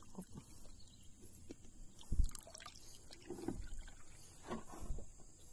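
Water splashing and dripping as a giant snakehead is lowered over the side of a boat for release, with three dull thumps about a second and a half apart.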